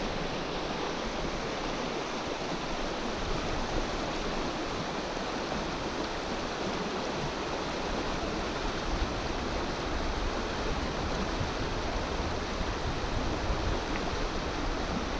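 Shallow river current rushing over rocks: a steady, even water noise.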